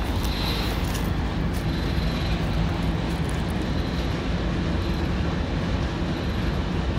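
Diesel locomotive running steadily: a low, even engine rumble under a steady rushing noise.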